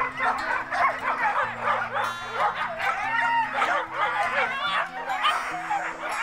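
Several Siberian huskies vocalising over one another at once, a dense tangle of short high calls that rise and fall in pitch. Soft background music with low held notes runs underneath.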